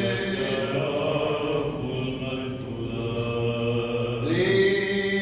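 Byzantine-style liturgical chanting in Arabic, with long held notes that change pitch slowly and a new note sliding up about four seconds in.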